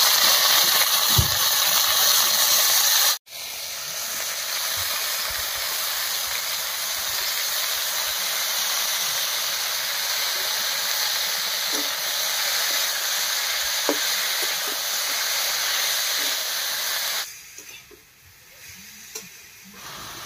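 Moist shredded banana stem sizzling in hot mustard oil in a karai, a loud, steady hiss, stirred by hand. It is loudest in the first few seconds, cuts off abruptly about three seconds in, resumes a little quieter, and dies down about seventeen seconds in.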